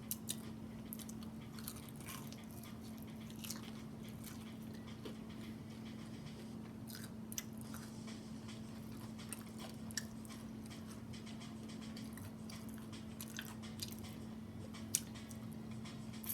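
Someone chewing food close to the microphone: irregular small clicks and smacks of the mouth, over a steady low hum.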